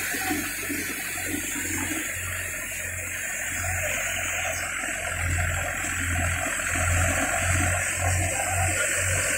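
Wheat thresher driven by a Farmtrac 45 tractor's diesel engine, both running steadily under load. The thresher's drum and fan give a continuous rushing noise over the engine's low hum, which swells and fades irregularly.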